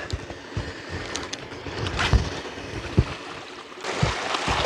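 Seawater sloshing and lapping at the shore, with wind on the microphone and a few low thumps.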